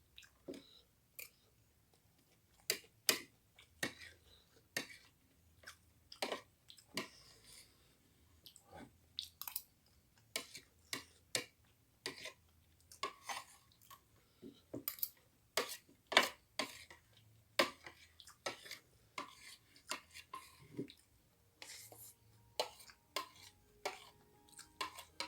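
Close-miked chewing of fried rice, with irregular short smacks and clicks, one or two a second, and the occasional clink of a spoon on a plate.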